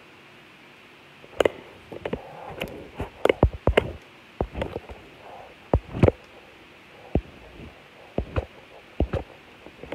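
Handling noise from a phone being held and fumbled close to its microphone: irregular knocks, taps and rubbing, several of them loud, starting about a second and a half in.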